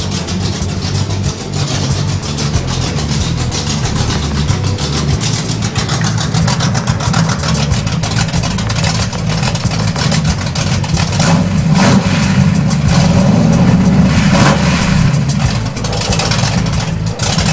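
Freshly broken-in 410 cubic inch stroker V8 in an early Ford Bronco, running with a steady pulsing beat and revved up briefly from about eleven to fifteen seconds in.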